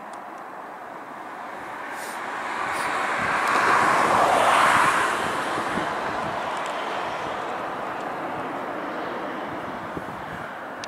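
Jet engine noise from a Ryanair Boeing 737-800 moving along the runway. It swells to its loudest about four to five seconds in, then slowly fades as the aircraft moves on.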